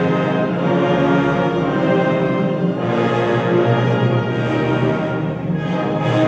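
Symphony orchestra playing, holding sustained chords.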